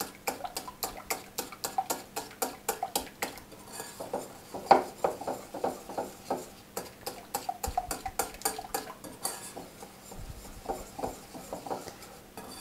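Wire whisk beating a thick yogurt, egg and flour mixture in a glass bowl, its wires clicking against the glass in quick strokes, several a second. The mixture is being beaten smooth so that no lumps of flour remain.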